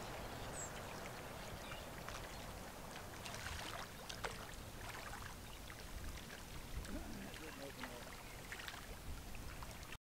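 Faint wind and lapping water with scattered small ticks, cutting off suddenly near the end.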